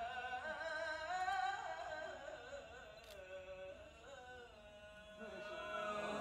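A man reciting the Quran in melodic tilawah style into a handheld microphone: long, ornamented sung phrases with wavering pitch. The phrasing grows softer past the middle, and a new phrase rises near the end.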